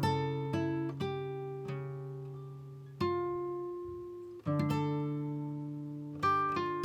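Slow instrumental music on plucked acoustic guitar: single notes and chords struck a few seconds apart, each left to ring out and fade.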